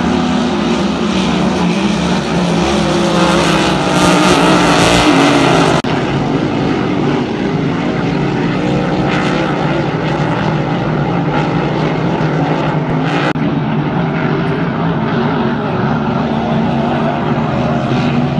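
Grand Prix-class hydroplane race boats running flat out, their engines making a loud, steady drone. The sound is loudest around four to six seconds in, drops off abruptly, then carries on slightly quieter.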